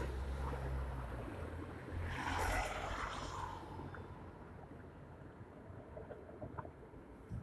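A vehicle passing, its rumble fading away, then a second vehicle swishing past about two seconds in and dying away to faint background noise.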